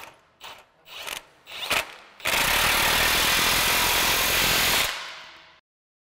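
Cordless impact wrench on a nut on a planter row-unit bracket: a few short rattling blips, then one steady run of about three seconds that tails off near the end.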